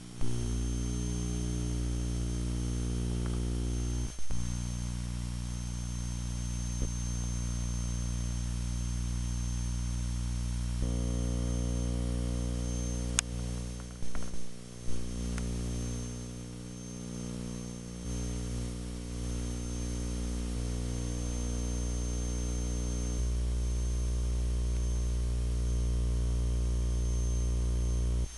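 Steady electrical hum and buzz with many overtones, its pitch pattern changing twice. A few sharp knocks break it, about four seconds in and in the middle.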